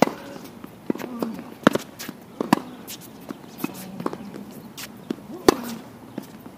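Tennis rally on a hard court: sharp pops of the ball striking racket strings and bouncing off the court surface at uneven intervals, a few hits much louder than the rest.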